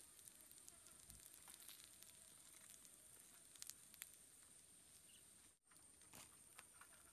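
Pork frying on a hot flat stone over a wood fire, sizzling and crackling faintly, with a few sharp ticks and a steady high-pitched whine underneath. The sizzling breaks off briefly about five and a half seconds in, then faint crackles go on.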